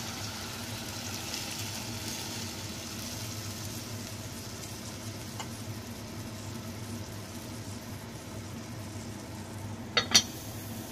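Water poured into a pot of chicken feet, a hiss over the first few seconds, over a steady low hum. Near the end a lid is set onto the pot with two quick clacks.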